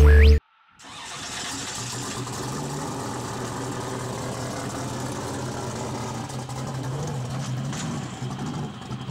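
Off-road race vehicle engine running steadily with a low, even hum, coming in about a second in after a short silence.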